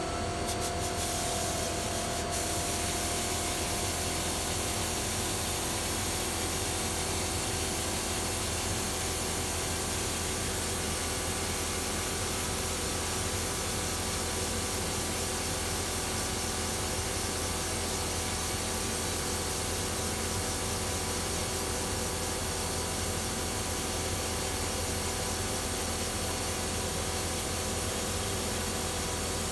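Compressed-air cup spray gun hissing steadily as it atomizes ceramic glaze onto a pot, with a steady low hum underneath.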